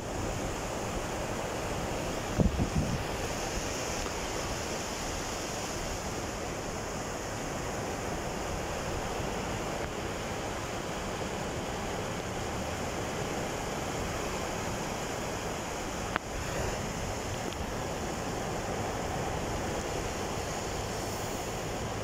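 Mediterranean surf breaking and washing up a sandy beach, a steady rush of waves with some wind on the microphone. A brief low thump about two seconds in.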